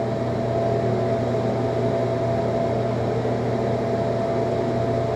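Steady mechanical hum of a room ventilation fan, with a faint steady whine held above it.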